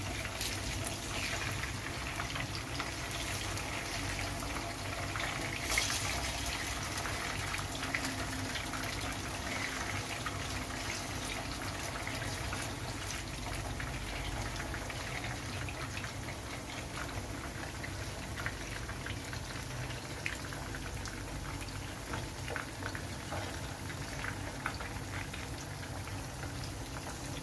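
Marinated chicken pieces frying in hot oil in a frying pan: a steady sizzle full of small crackles and pops, with a sharper pop about six seconds in.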